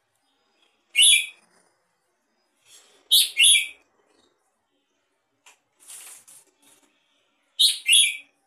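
Red-whiskered bulbul (jambul) giving short, sharp calls: one about a second in, a quick pair around three seconds, and another pair near the end. A fainter, noisier sound comes around six seconds.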